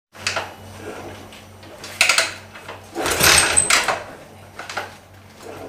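Yamaha SR400's single-cylinder engine being kick-started: clanks of the kick-start lever, two short ones and then a longer, louder stroke about three seconds in.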